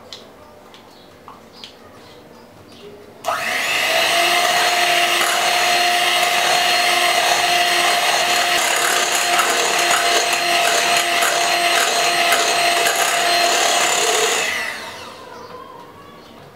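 Electric hand mixer switched on about three seconds in, running at a steady whine as its beaters whisk cake batter in a glass bowl. Near the end it is switched off and its motor spins down.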